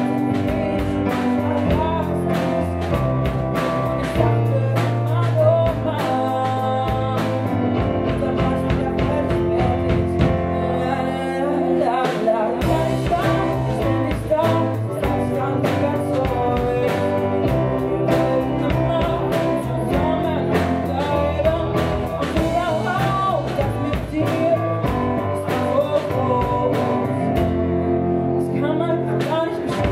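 Live band playing a song: a woman singing over electric guitar, keyboard and drums.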